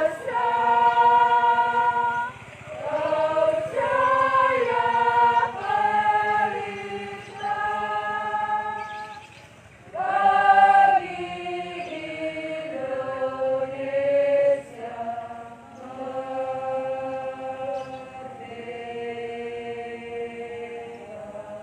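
A group of people singing a song together in unison, in long held notes grouped into phrases with brief pauses between them.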